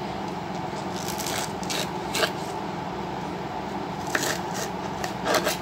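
A knife slicing through a raw cabbage leaf on a wooden cutting board: scattered short, crisp crunches and scrapes over a steady background hum.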